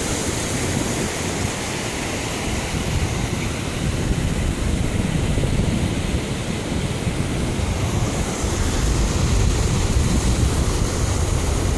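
Wind buffeting the microphone in gusts over a steady rush of river water churning and spilling below a concrete structure.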